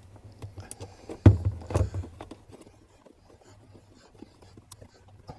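Small metal clicks and knocks as a hex key works a 3 mm screw out of a sidecar seat latch. There are two louder knocks about a second and a half in, then fainter ticks.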